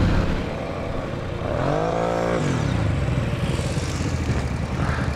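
ATV engine running steadily as the quad rides over a snowy track, revving up and back down once about two seconds in.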